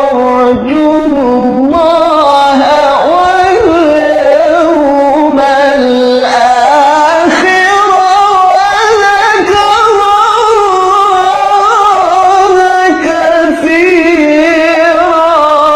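A solo voice in melodic Quranic recitation, holding long, ornamented notes whose pitch wavers and glides, with a quick trembling ornament near the end.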